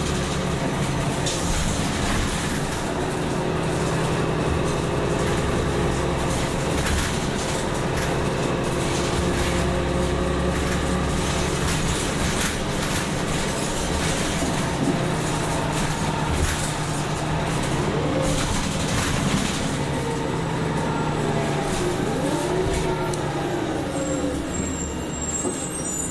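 Cummins ISL-G natural-gas engine and Allison B-400R automatic transmission of an Orion VII NG CNG transit bus, heard from inside the passenger cabin as the bus drives. The engine's steady drone shifts in pitch a couple of times along the way.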